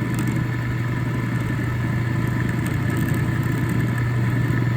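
Drill press motor running steadily with a constant hum, its 5/16-inch end mill taking a light cut, with a few faint scratchy ticks near the start and about three seconds in.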